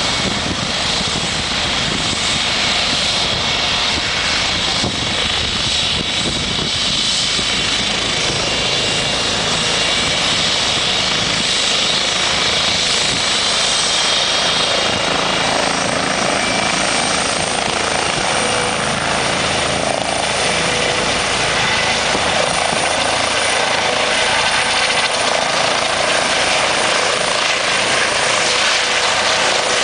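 Air ambulance helicopter running on the ground: a steady loud rotor and turbine noise with a high whine. From about halfway through, the whine rises slightly in pitch as power comes up for lift-off, and the helicopter is airborne near the end.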